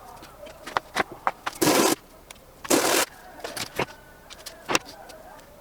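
PETG 3D-printed parts being handled and cleaned up with sandpaper: sharp plastic clicks and taps, with two short scraping strokes a second apart.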